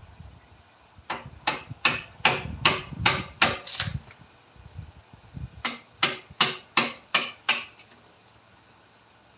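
A hammer tapping on wood in two runs, about eight blows and then, after a short pause, about seven more, at roughly three blows a second.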